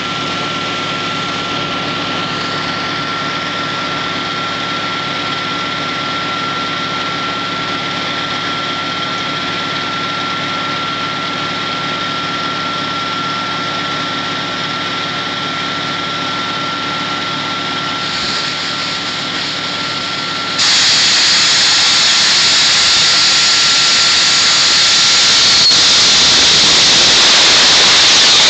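Ingersoll-Rand T4W water-well drilling rig running steadily, its engine drone carrying a steady whine. About 20 seconds in, a loud rush of air, water and cuttings suddenly starts blasting out of the rig's discharge pipe as the hole is blown out.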